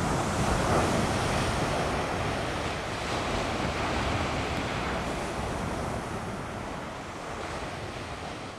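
Ocean surf breaking on a sandy beach: a steady wash of waves, loudest about a second in and slowly easing afterwards.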